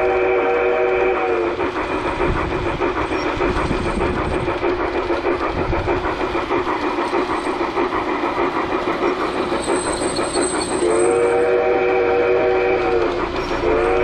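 Sound-unit whistle of a Piko White Pass & Yukon Route G-scale model steam locomotive: a steady chord whistle that ends about a second in, blows again for about two seconds around eleven seconds in, and starts once more near the end. Under it, the model train runs with a steady clatter of wheels on the track.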